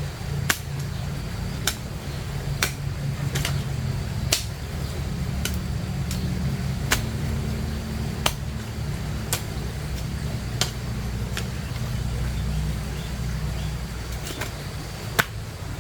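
A digging tool chopping into soil, a sharp strike about once a second, over a steady low rumble.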